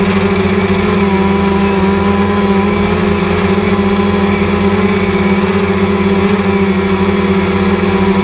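Quadcopter drone's motors and propellers humming steadily at one pitch, heard loud and close.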